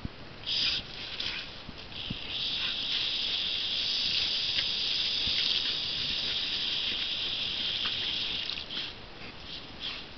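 A jet of water spraying with a hiss, first in short spurts, then steady for about six seconds from about two seconds in, breaking up again near the end as a dog snaps at the stream.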